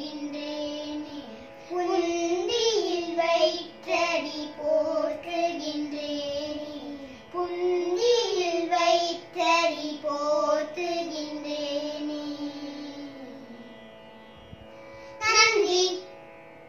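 Two young girls singing a Tamil devotional bhajan to Ganesha in Carnatic style, in phrases over a steady drone. The singing fades away near the end of the line, then one short closing phrase comes just before it ends.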